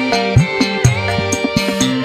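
Dangdut koplo music: low hand-drum strokes that drop in pitch, about two a second, over held melody notes, with no singing.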